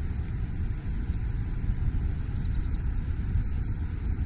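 Steady outdoor rumble with a lighter hiss above it and no distinct events: the ambient noise of the riverbank.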